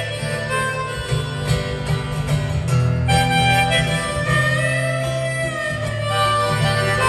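Live harmonica playing long held notes over strummed acoustic guitar: an instrumental passage from a folk-rock song.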